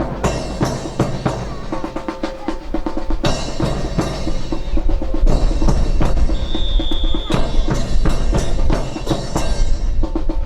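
Marching drum cadence on snare and bass drum, with fast strikes and rolls. A brief high steady tone sounds about six seconds in.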